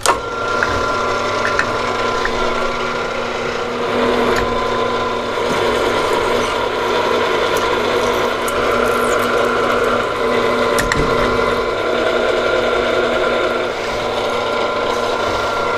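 Milling machine running a twist drill through heat-treated 4140 steel, drilling the tap holes for an M12×1.75 thread. It gives a steady mechanical whine with several held tones under the cutting noise, and a few sharp ticks.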